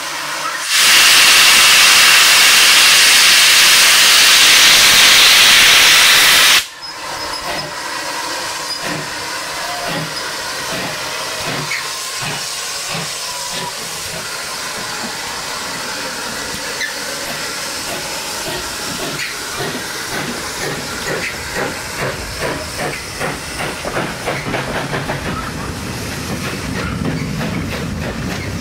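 Loud, steady hiss of steam from GWR 6400 class pannier tank No. 6430, cutting off abruptly about seven seconds in. Then the locomotive and its coaches run close past with a regular rhythmic beat.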